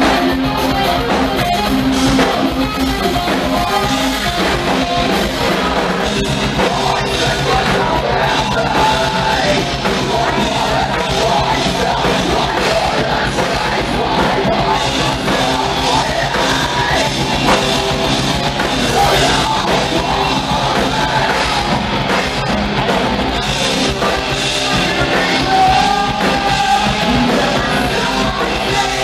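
Hard rock band playing live and loud: electric guitars and a drum kit, with a singer singing and yelling into a microphone.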